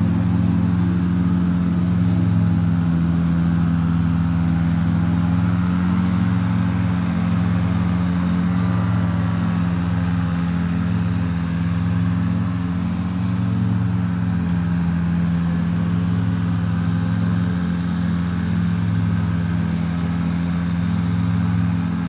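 A machine running steadily with a low, unchanging hum.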